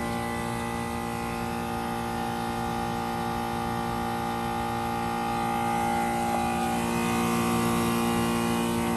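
1996 Goodman 4-ton heat pump outdoor unit running in a defrost cycle: a steady compressor hum made of several tones. About six seconds in, a higher whine comes up and the sound grows slightly louder.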